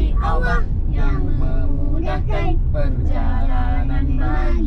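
A man, a woman and a young child chanting the Islamic prayer for riding a vehicle together in Arabic, in a sing-song recitation. A steady low rumble of the car's engine and road noise runs underneath.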